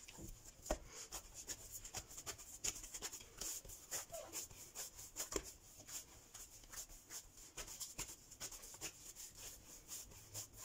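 Hands kneading bread dough in a glazed earthenware bowl: a faint, quick, irregular run of soft rubs and light knocks as the dough is pushed and folded against the clay.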